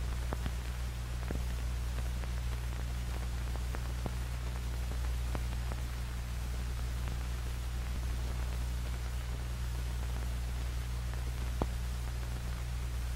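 Steady hiss and low hum of an old film soundtrack, with a few faint crackles scattered through it.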